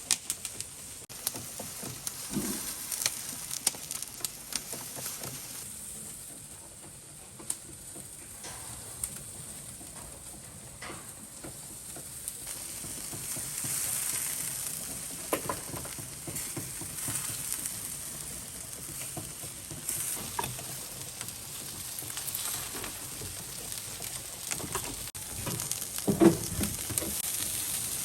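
Meat sizzling as it cooks, with scattered crackles and clicks. It gets louder about halfway through, and there is a sharp crack near the end.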